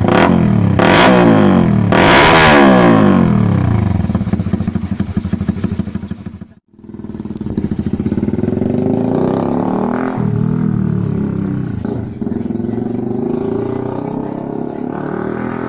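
Honda CB150R's single-cylinder engine through an SC Project aftermarket exhaust, blipped up and falling back in quick revs. After a sudden break about six and a half seconds in, it runs on with slower rises and falls in pitch.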